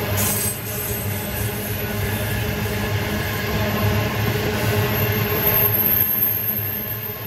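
Freight train passing with a steady low rumble, easing off a little near the end.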